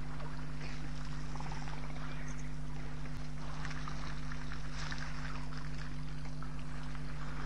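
African elephants drinking and splashing in a shallow waterhole: irregular sloshing and splashing of water stirred by their trunks and feet, over a steady low hum.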